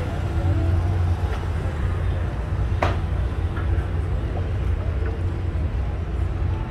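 Steady low outdoor rumble with no clear single source, and one sharp click about three seconds in.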